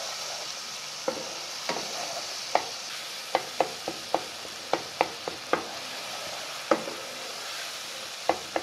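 Tomato-and-onion masala sizzling in oil in a ceramic-coated frying pan while a spatula stirs it, knocking and scraping against the pan in about a dozen sharp, irregular clicks over a steady sizzle. The tomatoes are being fried down until they soften.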